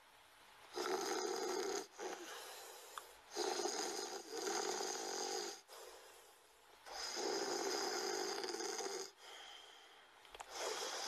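Snoring in slow, even breath cycles about three and a half seconds apart: each cycle is a loud, rasping breath of one to two seconds followed by a softer one, about three cycles in all.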